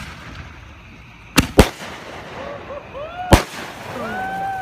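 Fireworks going off: three sharp bangs, two in quick succession about a second and a half in and another near the middle.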